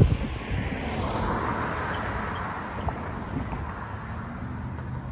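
A car passing on the road, its tyre noise swelling and then fading over a couple of seconds. Wind buffets the microphone briefly at the start.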